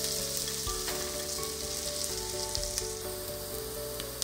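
Sliced onions sizzling in hot oil in a stainless steel pressure cooker as they fry toward brown. A wooden spoon stirs them, scraping and tapping the pan a few times.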